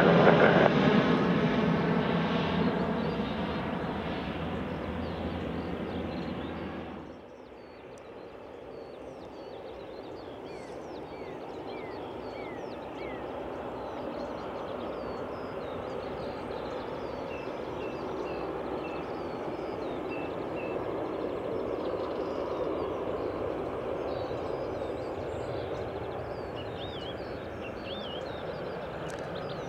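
Bombardier Dash 8-Q400's twin Pratt & Whitney PW150A turboprops and propellers at climb power during a go-around: a steady drone that fades over the first seven seconds, drops abruptly, then slowly swells and eases again as the aircraft passes. Small birds chirp and whistle over it.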